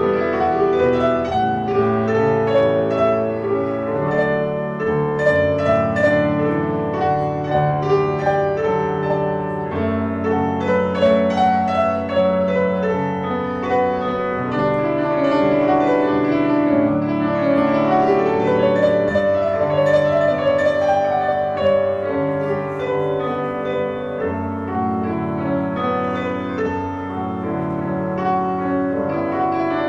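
Piano music with many notes sounding together.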